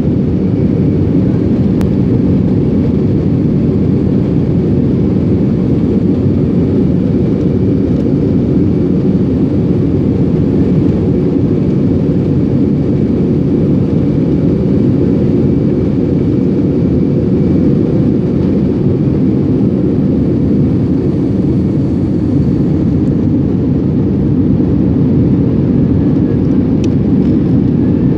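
A Boeing 767's twin turbofan engines at takeoff power, heard inside the cabin as a loud, steady roar through the takeoff roll and lift-off, with a faint steady whine above it.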